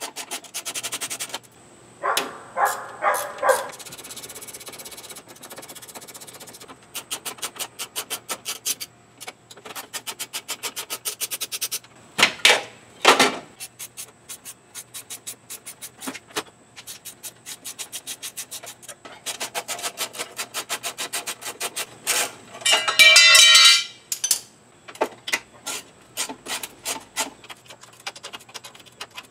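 Socket ratchet clicking in quick, evenly spaced runs as bolts are worked, broken by a louder clank and a few short metallic squeaks, the loudest squeak about three quarters of the way through.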